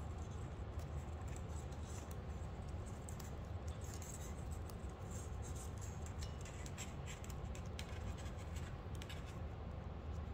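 Small sharp clicks and light scraping from the plastic segments of a 3D-printed folding yardstick as its friction hinges are folded one after another into a stack. The clicks come in quick clusters, thickest in the second half.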